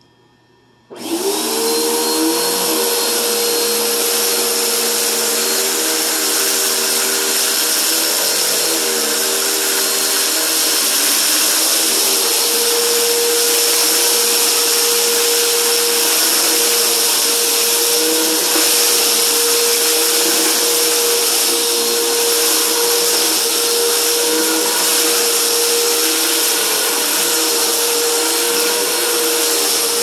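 A blue Helix upright vacuum cleaner switched on about a second in, its motor spinning up quickly to a steady whine and running on as it is pushed over carpet, sucking up a pile of sequins.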